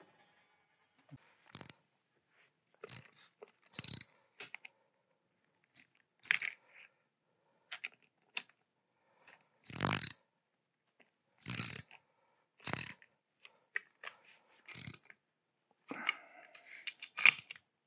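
Socket wrench and steel parts clanking and clicking as the nuts on the T-bolts holding a machinist's vise to a magnetic vise mount are loosened and reset: a string of separate sharp metal knocks at uneven spacing, the loudest around ten and twelve seconds in.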